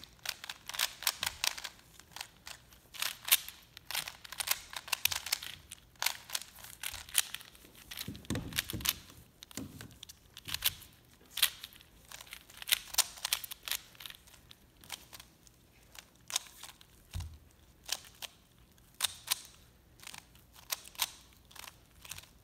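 Plastic speed cubes, a 3x3 and a 4x4, being turned fast by hand: rapid runs of clicks and clacks from the layers snapping round, in uneven bursts with short pauses.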